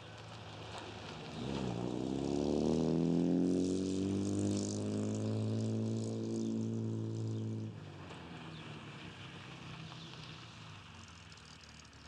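A car engine speeding up, its pitch rising for a second or two, then running steadily at one pitch before cutting off abruptly about eight seconds in. Fainter steady road noise follows.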